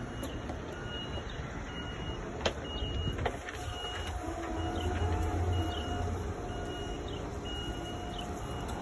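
Forklift running with a steady low engine hum, a faint short beep repeating about every half-second, and from a little past the middle a wavering whine with a steady tone over it. Two sharp knocks close together about a third of the way in.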